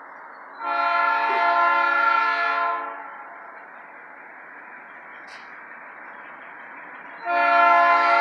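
GE B23-7 diesel locomotive's air horn blowing two long blasts of several notes at once: the first lasts a little over two seconds, the second starts near the end about four seconds later. The long blasts are typical of a locomotive sounding for a grade crossing as the train approaches.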